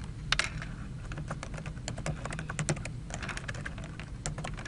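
Computer keyboard being typed on: short key clicks in irregular quick runs as a word is entered.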